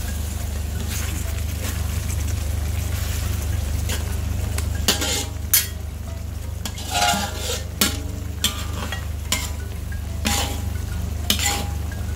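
Metal spatula and ladle scraping and clinking against a wok while a fish head is turned in a simmering, sizzling sauce. About ten separate scrapes and clinks, some ringing briefly, come over a steady low hum.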